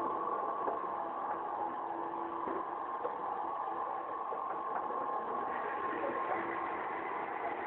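Motorised polycarbonate roll-up shutter running, a steady mechanical hum with a constant whine.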